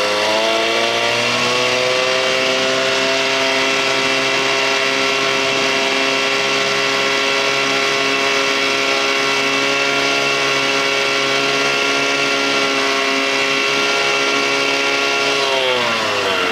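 1987 Johnson 6 hp two-stroke twin outboard running under way: the revs climb over the first couple of seconds, hold steady at full throttle, then drop near the end. It holds full throttle without bogging, its bogging problem fixed.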